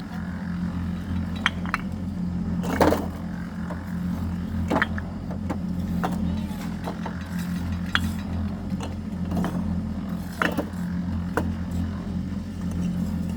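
A motor running steadily, with sharp clinks and knocks every second or so on top of it.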